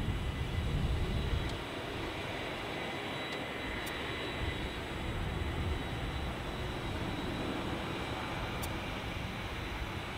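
Boeing 737-800 jet engines (CFM56-7B turbofans) on final approach to land: a steady jet rush, with a heavier low rumble for the first second and a half that then drops away.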